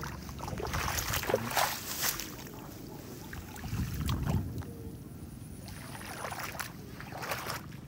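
Footsteps sloshing through shallow floodwater on a path, with plants brushing and rustling, in irregular swishes that come in clusters.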